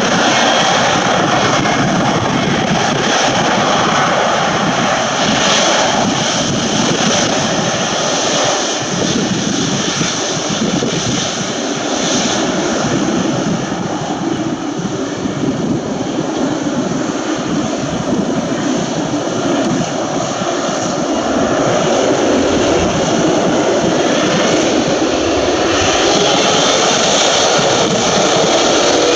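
Jet airliner engines at takeoff thrust, a loud steady roar that eases a little around the middle and builds again toward the end.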